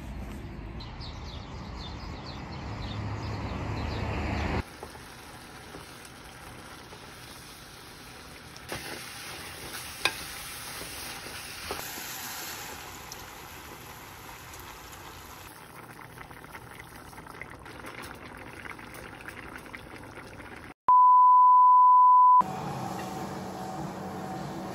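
A run of short clips: first a bag rustling while walking, then from about five seconds in a pan of kimchi stir-frying with a few clicks of the spatula. Near the end a loud, steady electronic beep lasts about a second and a half, and is followed by the steady hum of a treadmill running.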